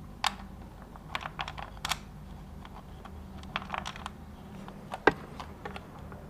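Scattered light clicks and taps of hand tools and bolts being handled while refitting the motorcycle's fairing bolts, with the sharpest tap about five seconds in. A faint steady low hum sits underneath.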